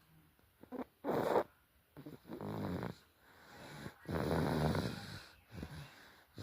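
Baby snoring: about four separate snores in a few seconds, each up to about a second long, some with a buzzing pitched tone.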